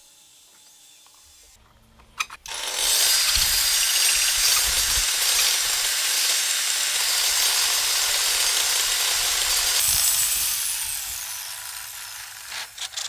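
Table saw blade cutting a square wooden stick into a round dowel as a cordless drill spins the stick through a jig. A couple of clicks about two seconds in, then a loud, steady cutting noise for about seven seconds that tapers off, with a few short bursts near the end.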